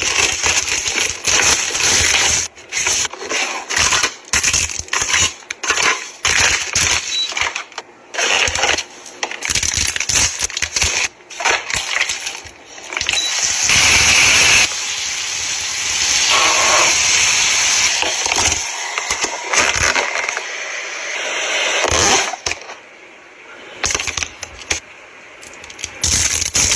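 Crinkling and rustling of plastic packaging and film, with sharp clicks of a plastic lid and container being handled, as a self-heating instant rice pot is unpacked and a plastic-wrapped spoon is unwrapped. About halfway through, a steadier noise lasts several seconds.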